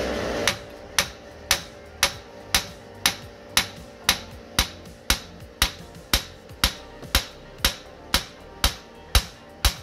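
Ball-pein hammer striking the top of a Citroën C3's front hub carrier in a steady rhythm, about two metal blows a second, to drive the seized hub down off the bottom of the shock absorber.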